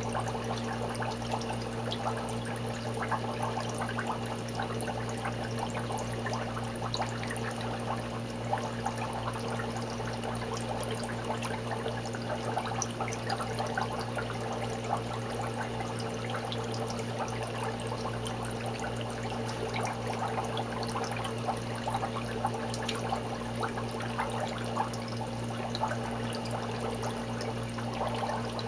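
Water splashing and dripping as wet clumps of green hair algae are pulled by hand out of a water-filled algae scrubber box, with a steady low hum underneath.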